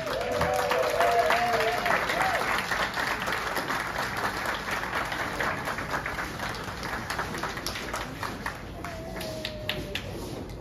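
Audience applauding, loudest at first and dying away towards the end.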